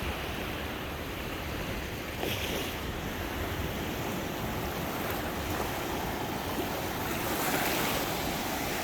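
Gulf of Mexico surf washing onto the beach, a steady rush of breaking waves that swells louder near the end, with wind rumbling on the microphone.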